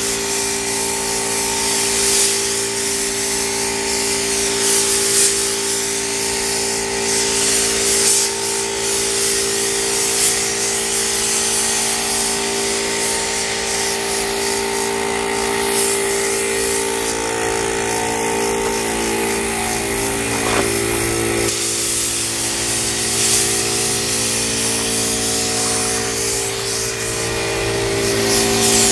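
Gravity-feed paint spray gun on compressed air, hissing as it sprays paint onto a car body. The hiss swells and fades every couple of seconds with each pass of the gun.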